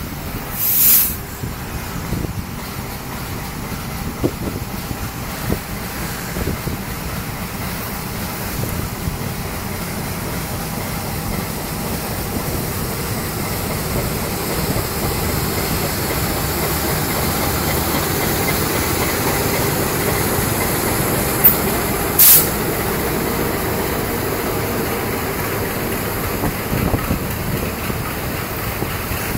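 A diesel locomotive hauling passenger coaches passes close by, a steady rumble of engine and wheels on the rails that grows slowly louder as the coaches roll past. Two short, sharp hisses cut through, about a second in and again about three quarters of the way through.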